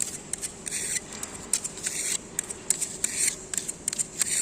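Short scraping strokes and many sharp clicks of a hand tool working filler across a concrete slab crack, with scrapes about a second, two seconds and three seconds in.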